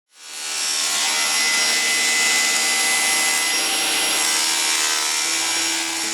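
Power tool working wood, a continuous steady hiss with a faint whine and no separate strokes. Low sustained music notes come in near the end.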